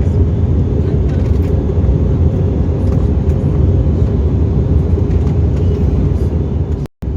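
Steady airliner cabin noise in flight: a low rumble of engine and airflow with a faint steady hum. It cuts out for an instant near the end.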